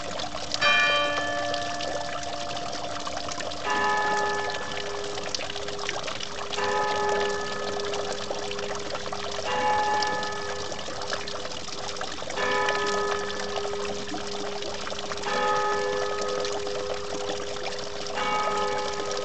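Church bells ringing, a new strike about every three seconds with a long ringing tail. Under them, water spouts steadily from a stone boulder fountain and splashes onto the rocks.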